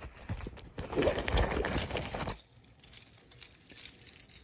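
A bunch of keys jangling and clinking, with rubbing and knocking handling noise that dies away about two and a half seconds in while light clinks go on.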